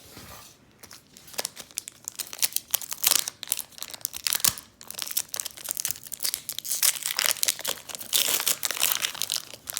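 Foil wrapper of a Pokémon card booster pack being torn open and crinkled by hand, a dense run of irregular crackles from about a second in.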